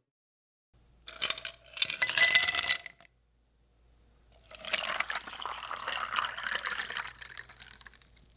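Glass clinking in two short ringing bursts about a second in, then liquid pouring for about three seconds.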